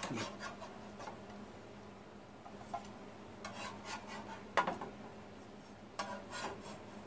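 A metal spatula scrapes and clinks on a griddle as cooked pancakes are slid off and lifted onto a plate. There are a few separate scrapes and clicks, the sharpest clink a little past the middle.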